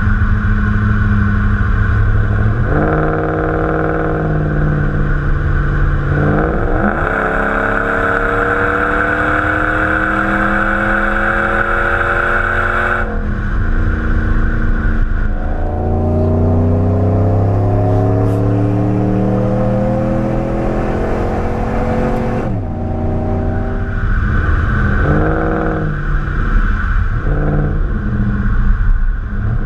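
Dodge Ram's 5.7-litre Hemi V8 on its stock exhaust, running steadily and then pulling in two long, slowly rising sweeps, each ending in a sudden drop in pitch. Near the end it gives several short revs.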